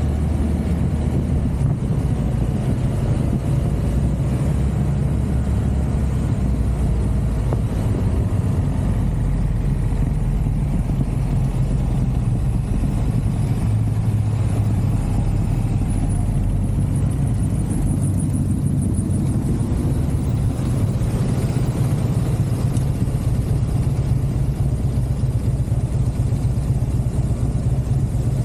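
Motor scooter engines running steadily while riding in a group, a constant low hum of engine and road noise.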